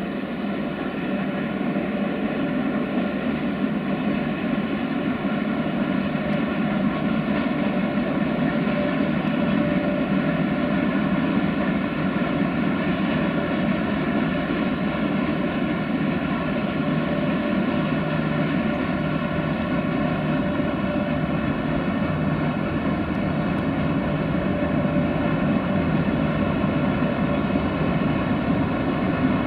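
Steady drone of a double-headed electric freight train, an 060-EA (LE 5100 kW) and a LEMA 480 locomotive, running under power: a hum made of many level tones that holds without change.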